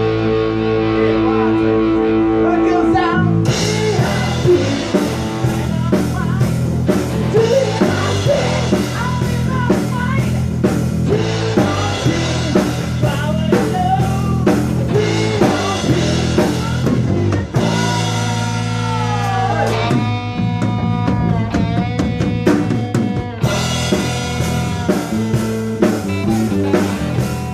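Rock band jamming: drum kit and guitar playing together continuously, with bent or gliding guitar notes.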